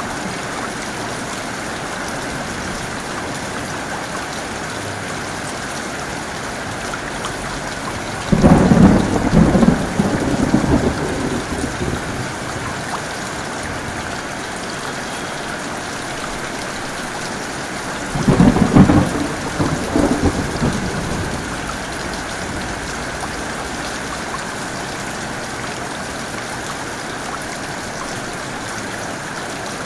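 Heavy rain falling steadily, with two loud claps of thunder, about eight and eighteen seconds in. Each starts suddenly and rumbles away over a few seconds.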